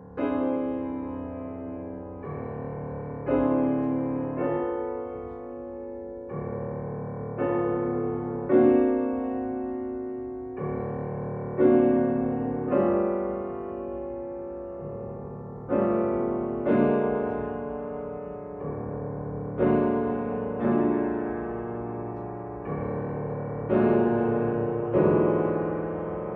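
Grand piano played solo: slow chords struck every one to two seconds, each left ringing and fading before the next.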